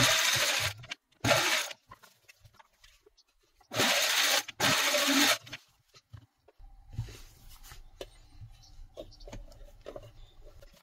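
Fabric rustling and rubbing as it is handled at a sewing machine, in three loud bursts in the first half. After that only a faint low hum with a few light clicks.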